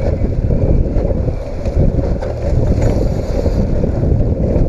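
Strong wind buffeting the microphone on a small boat at sea, a loud, rough rumble with the noise of the boat and water underneath.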